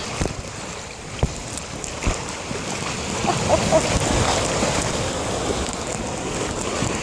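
Water rushing along an open water slide under a sliding rider, mixed with wind on the microphone, with a few dull knocks in the first two seconds.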